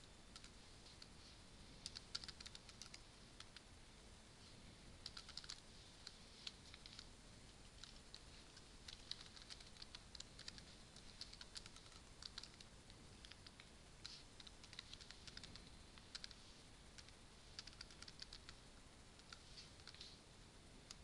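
Faint computer keyboard typing: quick runs of keystrokes with short pauses between them.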